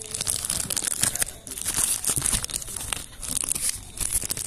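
Clear plastic packaging bag crinkling and tearing as it is pulled open by hand, an irregular run of crackles throughout.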